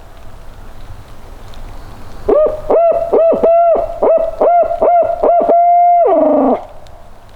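Barred owl call hooted by mouth as a turkey locator call: a quick run of hoots ending in one long hoot that slides down, meant to startle gobblers into gobbling.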